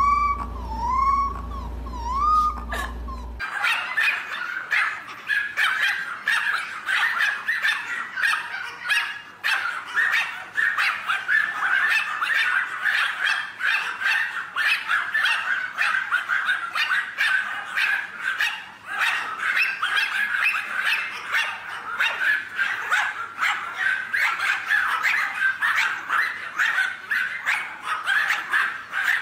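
A golden retriever puppy whimpering in short, rising-and-falling cries. From about three and a half seconds in, a large crowd of Pomeranians barking and yipping all at once, a dense, unbroken chorus of high, short barks.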